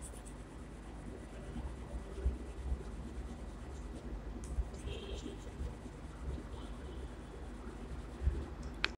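Staedtler 3B graphite pencil shading back and forth on drawing paper, an irregular scratching of lead on paper, with a few soft thumps.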